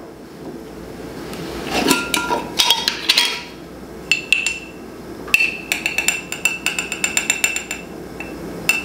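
Glass spice jars and a small metal spoon clinking and knocking as spices are measured out: some handling and scraping about two seconds in, then a quick run of light ringing taps about five seconds in.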